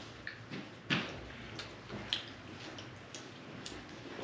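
Scattered small clicks, taps and soft rustles of people eating a meal by hand, plates and bread being handled, over a low steady hum. The sharpest taps come about a second in and again about two seconds in.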